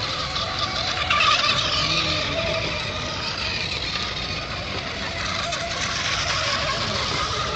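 Radio-controlled racing hydroplanes running flat out across the water: a wavering, high motor-and-propeller whine over a steady hiss of spray, a little louder about a second in.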